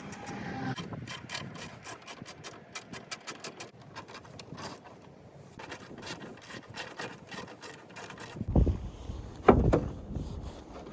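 Ratchet wrench clicking at several clicks a second as it works the bolts holding a sawmill's gas tank, followed by a few louder knocks and scrapes near the end.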